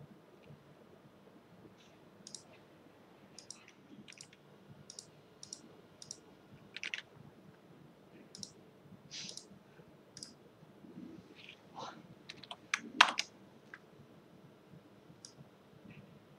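Irregular clicks of a computer mouse and keyboard as a diagram is drawn and a label typed, faint, with a quicker, louder run of clicks about three-quarters of the way through.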